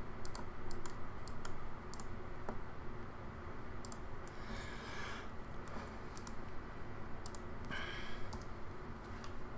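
Scattered computer mouse and keyboard clicks in small clusters, over a low steady hum, with a couple of brief soft hisses about five and eight seconds in.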